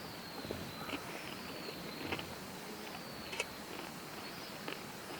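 Scattered sharp clicks and light crackles, about five in a few seconds, over a steady faint outdoor background, with faint high notes that slide downward every second or so.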